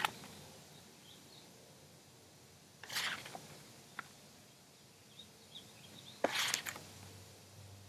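Quiet background hiss with faint, scattered high chirps and two brief whooshing noises, about three and six seconds in, the second the louder.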